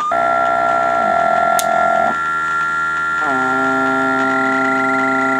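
Electronic drone machine held to a wireless microphone and received on a software-defined radio: a sustained buzzy drone chord that steps to a new pitch three times, over a steady high whistle.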